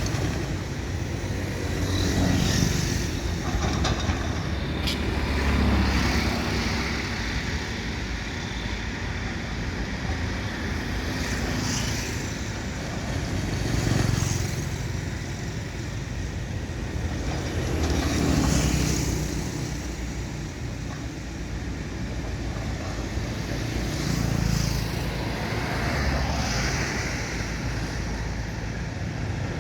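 Excavator's diesel engine running, its rumble rising and falling every few seconds as the machine works, with an occasional sharp knock.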